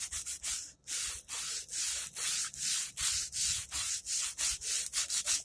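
Sandpaper scratching back and forth by hand on the side of a Hi-Point C9 pistol, in even strokes about three a second that stop at the end. The pistol's outer finish is being sanded off down to gray bare metal before polishing.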